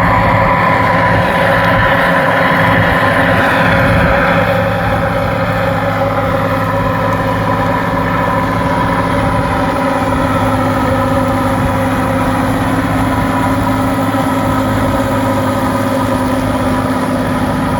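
An engine running steadily at idle, a constant low rumble with an even, unchanging pitch; it gets slightly quieter about four and a half seconds in.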